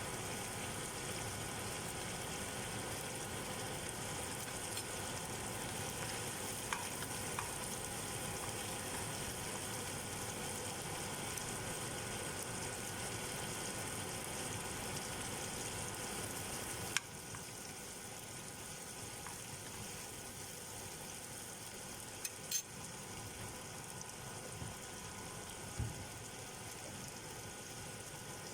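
Food sizzling as it fries in a hot pan, a steady hiss that drops to a quieter level a little past halfway through, with a few small clicks near the end.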